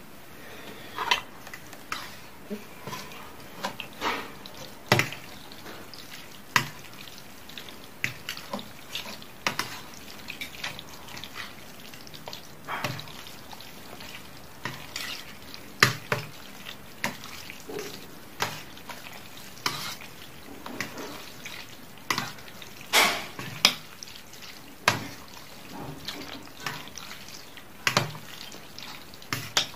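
Two metal forks stirring and tossing cooked instant noodles in a stainless steel tray, with irregular clinks and scrapes of the forks against the metal, one to a few a second.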